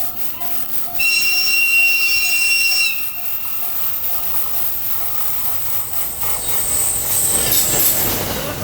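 Level-crossing alarm bell ringing steadily. About a second in, the EF510 electric locomotive sounds a loud, high horn for about two seconds, then the locomotive and sleeper cars run past, growing louder with wheel squeal near the end.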